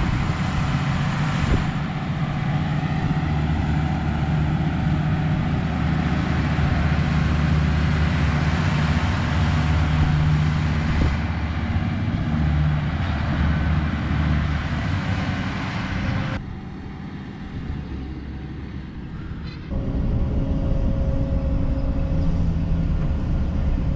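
Diesel tractor pulling a liquid-manure tanker, its engine running steadily. About sixteen seconds in the sound drops for a few seconds, then an engine hum returns.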